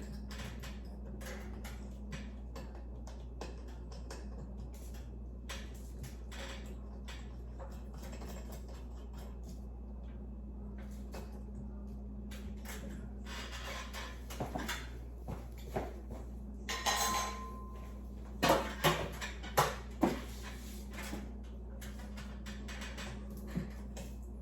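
Small metal and glass parts of a ceiling light fixture clicking and clinking as it is taken down, with a run of louder knocks and clanks in the second half, over a steady low hum.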